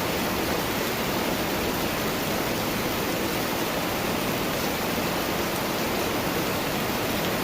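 Summer-storm rain falling steadily, an even hiss without separate drops standing out.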